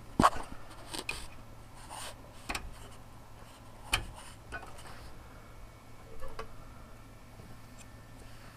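Several scattered sharp plastic clicks with light rubbing between them, the loudest just after the start and another about four seconds in: the retention clips of an Asus motherboard's RAM slots being pushed open and a RAM stick being handled.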